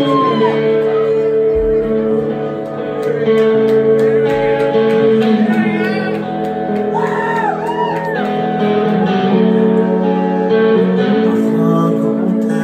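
A rock band playing live through a club PA: electric guitars and keyboard hold sustained tones over a steady low drone, with short high gliding notes rising and falling above them.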